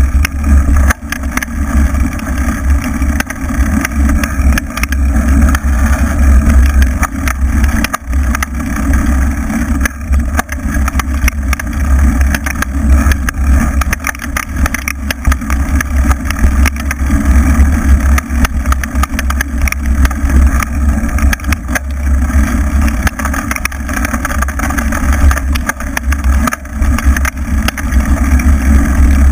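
Loud, steady rumble of riding along a rough dirt track, dominated by wind buffeting the mounted camera along with tyre and vehicle running noise.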